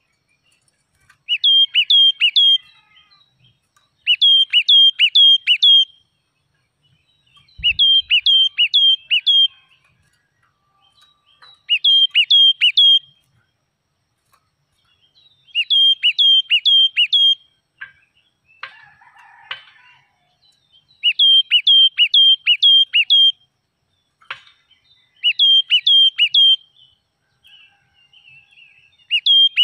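A crested songbird singing about eight bouts of song, each a quick run of four to six sharp, high notes that sweep downward, with pauses of a second or two between bouts. A low thump comes about eight seconds in, and a brief rustling noise about two-thirds of the way through.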